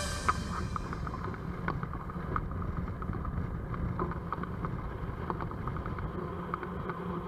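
Motorcycle engine running steadily at cruising speed, with a low rumble of wind.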